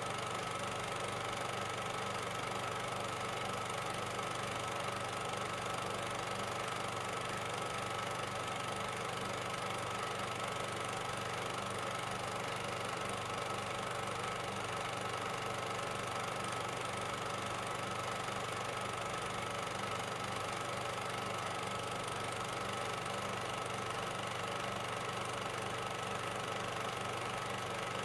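A steady, unchanging hum with a hiss over it: the background noise of an old 1945 newsreel soundtrack.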